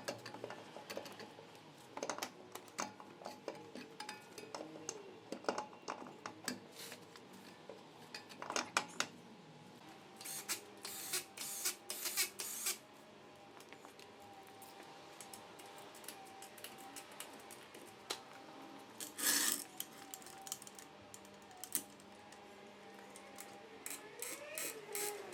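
Scattered metal clinks, knocks and clatters of a car's road wheel being wrestled back onto the hub, in short bursts with one louder knock about two-thirds of the way through and a run of quick ticks near the end.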